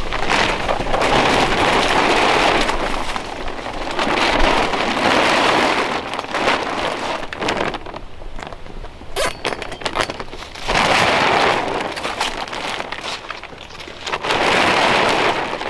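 Blue polyethylene tarp rustling and crinkling as it is pulled and hung on the side of a pop-up canopy, in several loud swells with quieter gaps between.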